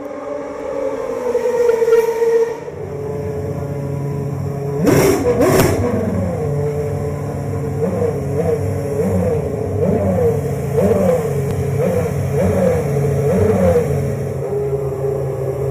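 Ferrari Formula 1 car engine. It opens with the engine note falling in pitch, gives two sharp cracks about five seconds in, then settles to a steady idle broken by a run of quick throttle blips, roughly one or two a second.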